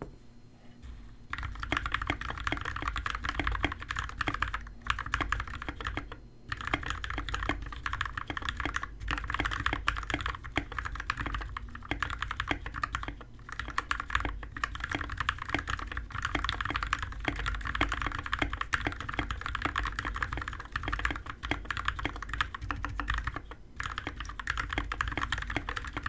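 Mechanical keyboard being typed on fast and steadily, its lubed, filmed switches giving dense clacks, with a few brief pauses.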